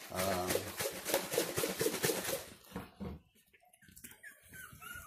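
A litter of young puppies squeaking and whimpering, with rapid scuffling and pattering over the first two and a half seconds, then short high squeaks near the end.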